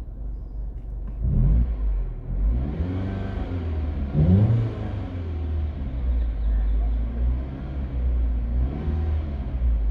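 2009 Mini Cooper R55's four-cylinder engine running unevenly, its speed rising and falling several times. This is the unstable idle linked to VANOS fault code 2845, which persists after the solenoid valves were cleaned.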